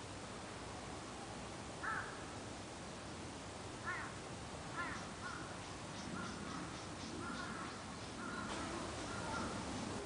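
Bird calls: three short harsh calls spaced a second or two apart, then a string of shorter repeated notes with faint high ticks through the second half.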